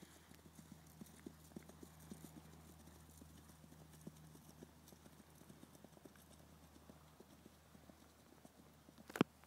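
Faint, irregular taps of a horse's hooves shifting on a hard floor, dense at first and thinning out, over a steady low hum. One sharp knock shortly before the end.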